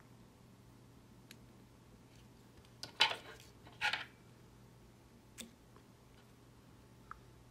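Tools and materials handled at a fly-tying vise: two short, noisy rustles about a second apart midway, and a few faint clicks.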